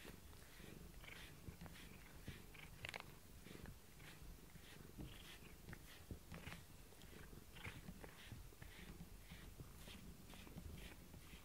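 A cat purring softly up close: a low, steady rumble. Frequent short scratchy ticks run over it as the cat rubs its face and mouth against a plastic bristle brush.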